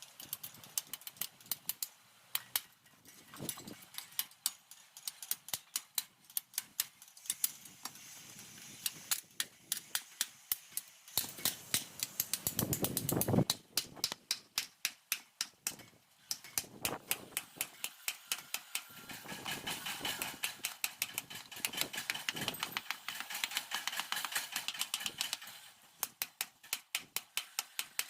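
Hammer striking steel in quick, even blows, about five a second. Around halfway a louder rising rush builds and then stops abruptly.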